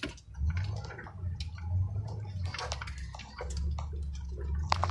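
Ford F-250 pickup's engine rumbling at low speed, rising and easing, heard from inside the cab. Tall weeds and brush swish, scrape and snap against the hood and windshield as the truck pushes through.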